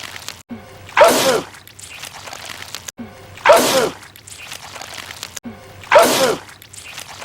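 A man's loud sneeze, the same one looped three times about two and a half seconds apart. Each has a voiced burst that falls in pitch, with a loud hiss over it.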